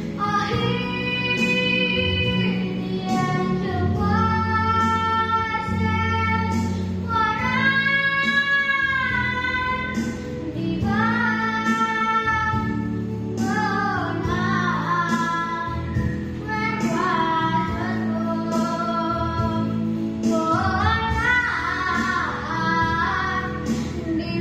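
A boy singing a solo song, holding several long notes with a wavering pitch, over an instrumental accompaniment.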